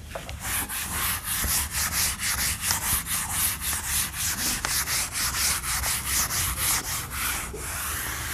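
A chalkboard being wiped clean with a duster, rubbed back and forth across the board in quick strokes, about five a second.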